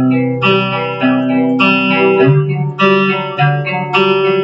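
Guitar playing an arpeggiated chord pattern: single notes picked one after another, each ringing on under the next.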